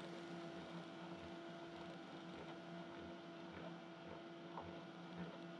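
Faint steady electrical hum: a low steady tone with a fainter, higher tone above it, over quiet room noise.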